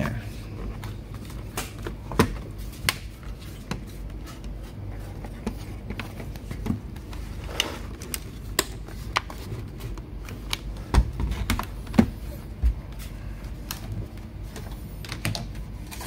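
Irregular light clicks and knocks as hands handle the black plastic underside of a Sony Vaio laptop, with a few louder knocks, over a low steady hum.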